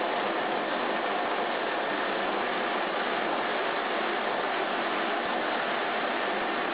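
Steady, even rushing noise of a waste-oil vacuum distillation plant's machinery running, with no distinct tones and no change in level.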